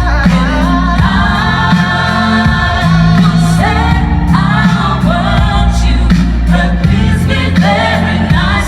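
Background music: a song with singing over a full band.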